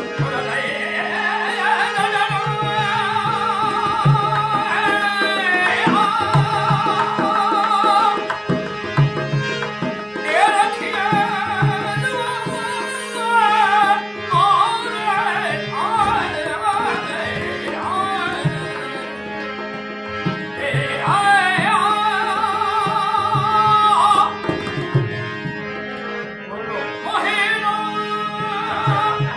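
Rajasthani folk song: a man sings long, ornamented phrases with short breaks between them, over a harmonium holding a steady drone and a dholak keeping a steady beat.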